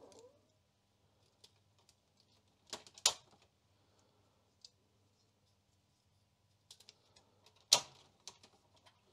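Plastic keys clicking as they are fitted and pressed into the Amstrad CPC 6128's keyboard plate: a few sharp clicks and small ticks, two close together about three seconds in and the loudest near the end.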